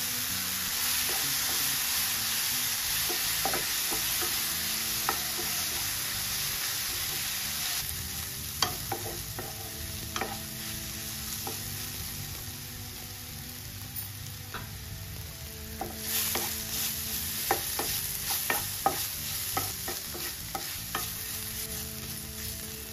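Sliced mushrooms and onions sizzling in oil in a nonstick frying pan, a steady hiss that is loudest in the first third. A spatula stirring them scrapes and taps against the pan in clusters of clicks, mostly in the middle and later part.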